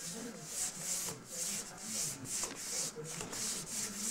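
A baby's hand rubbing back and forth across a plastic high-chair tray, making rhythmic swishing strokes about three times a second.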